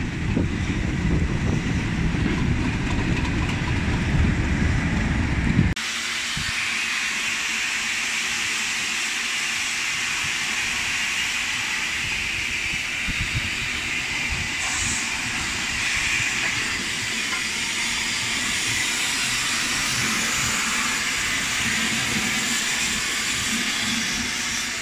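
A Class 37 diesel locomotive's English Electric V12 engine running as it pulls in, a heavy low rumble that cuts off abruptly about six seconds in. Then a steady hiss of steam escaping from LNER B12 4-6-0 steam locomotive 8572 standing still.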